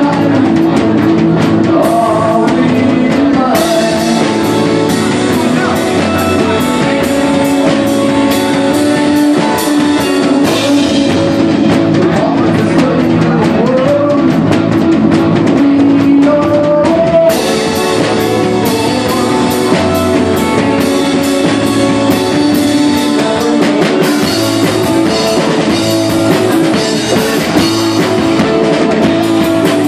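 Live rock band playing: drum kit, electric guitars and a voice singing. The cymbals come in harder about three seconds in and again about halfway through.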